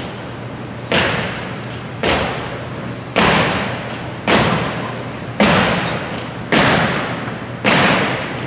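Marching cadets' feet striking a hardwood gym floor in unison, one sharp stomp about once a second, seven in all, each echoing through the hall.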